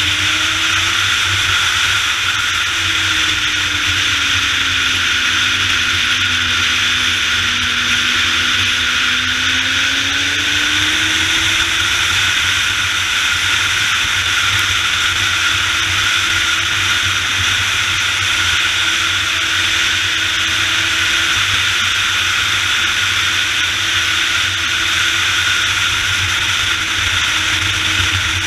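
Steady rush of wind over a camera riding on a Suzuki GSX-R sport bike at speed, with the engine's tone faint beneath it. The revs fall a few seconds in and rise back about ten seconds in.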